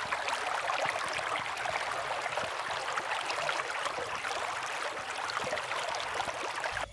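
Shallow spring-fed water babbling over rocks: a steady, dense patter of trickles and small splashes.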